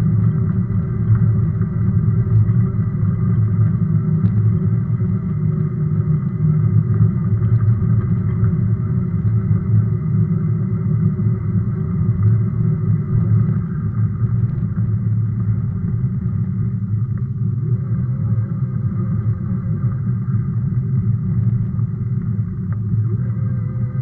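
Steady low rumble of wind on the microphone and tyre noise from a Sondors electric fat bike riding over rough, potholed asphalt.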